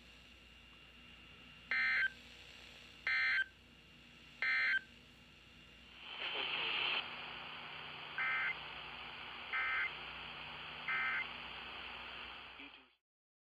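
Emergency Alert System end-of-message data bursts: three short, shrill digital warbles about a second and a half apart. A hiss of static then rises, and a second set of three fainter bursts follows over it before the sound cuts off suddenly near the end.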